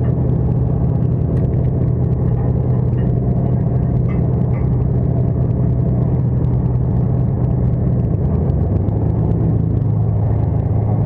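Steady low drone of a party boat's engine running.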